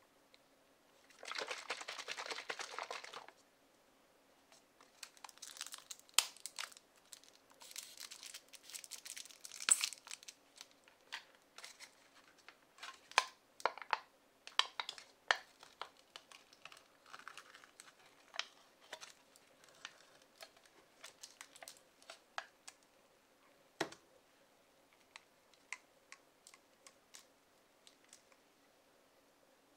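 Packaging of a plastic cup drink crinkling and tearing as its foil lid is peeled off. A steady rustle lasts about two seconds near the start, then come scattered crackles and clicks, with one duller knock about three quarters of the way through.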